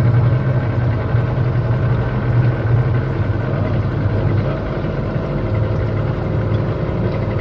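Outboard motor of a tour boat running steadily at cruising speed, a constant low drone.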